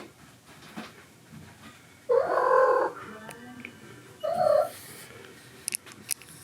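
Kitten meowing twice: a longer meow about two seconds in and a shorter one a couple of seconds later.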